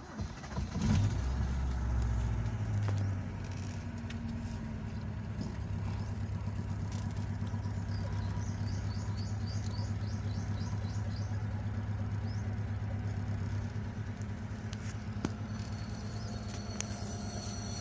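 Honda car engine starting about half a second in. It runs louder for a couple of seconds, then settles into a steady idle, just after its spark plugs have been cleaned to cure a rough, erratic idle.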